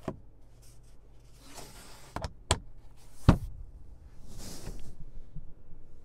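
Car sun visor being handled: several sharp plastic clicks and knocks, the loudest about three seconds in, with rubbing swishes between them as the visor is swung and snapped back against the headliner.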